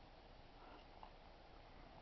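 Near silence: a faint steady background hiss, with a couple of faint high chirps just under a second in.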